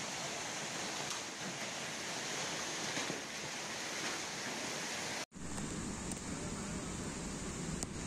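Torrential rain pouring down on a flooded street, with runoff rushing past, a steady hissing noise. About five seconds in it cuts off abruptly and gives way to a duller, lower rushing noise of storm floodwater.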